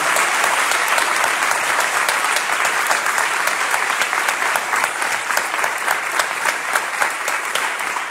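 Applause from a large group of people: many hands clapping at once, a dense, steady patter of claps.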